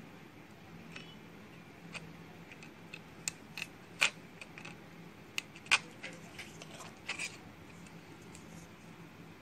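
Scattered light clicks and ticks from handling fine enamelled jumper wire and small hand tools over a mobile phone's circuit board. The sharpest come about four and six seconds in.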